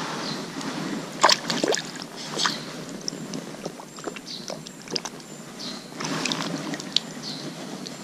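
A hand splashing in shallow stream water as a small fish is released, with a cluster of sudden splashes a little over a second in and a few more scattered after. The stream trickles underneath.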